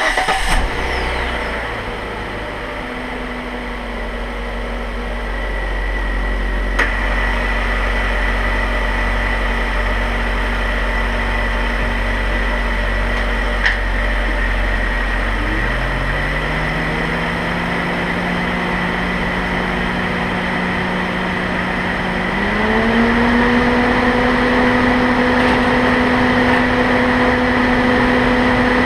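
Car engine starting, then running steadily at a low hum. About fifteen seconds in the vehicle pulls away, the engine note rising and levelling off, and it rises again about twenty-two seconds in as it speeds up. Two short clicks are heard along the way.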